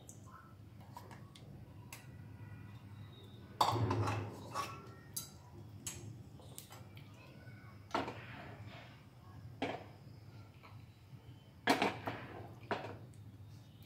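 Wooden spatula scraping and knocking against a steel frying pan as minced meat is pressed and spread flat, in several separate strokes; the loudest knock comes about four seconds in, with others later and two close together near the end.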